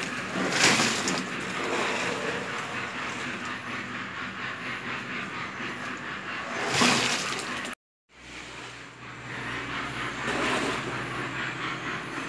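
Wet concrete tipped out of a bucket onto a rebar-reinforced floor slab, two louder slopping rushes near the start and about two-thirds of the way through, over a steady mechanical rumble; the sound cuts out briefly just after the second pour.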